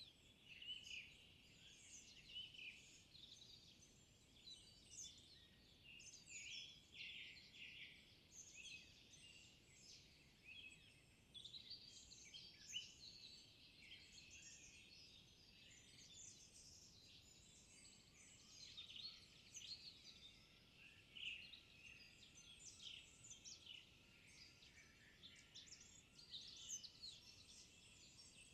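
Faint chorus of several songbirds singing over one another: many short, high chirps and trills throughout. From about two-thirds in, a quieter, evenly repeated run of lower notes joins.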